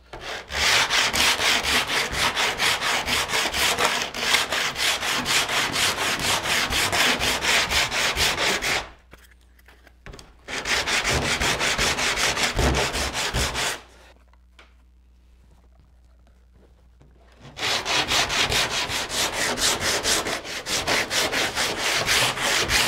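Hand sanding the cedar-strip interior of a wooden kayak hull with sandpaper on a foam sanding block, in quick back-and-forth strokes. The strokes stop twice for a few seconds, about nine seconds in and again about fourteen seconds in, then carry on.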